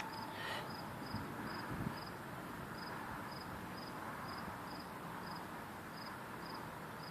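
Cricket chirping outdoors in short, even, high-pitched chirps, about two a second, over faint background hiss.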